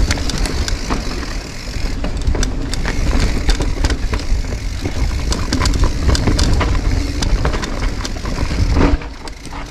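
Loud wind rumble on the microphone from a fast mountain-bike descent, with the rattle and knocks of a Giant Reign mountain bike running over rough, rocky ground. The rumble eases near the end.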